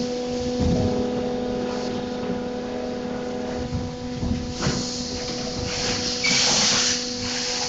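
Injection moulding machine cycling while making thin-wall in-mould-labelled containers: a steady machine hum, knocks as the mould moves, and a loud burst of compressed-air hiss about six seconds in while the mould is open.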